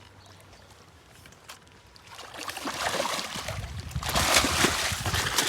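Water splashing and sloshing as a hooked carp thrashes at the surface, starting about two seconds in and growing louder, with many quick splashes.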